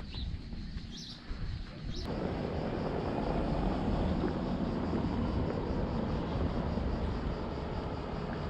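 Outdoor ambience: a few short bird chirps over a low rumble in the first two seconds, then, from an abrupt change about two seconds in, a steady dense rumbling noise with no distinct events.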